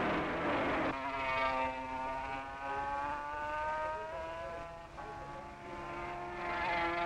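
Racing motorcycle engine at high revs, its note climbing steadily in pitch as the bike accelerates, and climbing again near the end. The first second is a rougher, noisier din of engines that changes abruptly.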